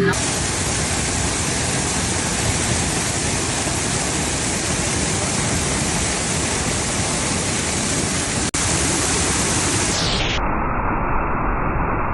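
Steady rushing roar of a waterfall, an even wash of falling water. It drops out for an instant past the middle and goes on duller near the end.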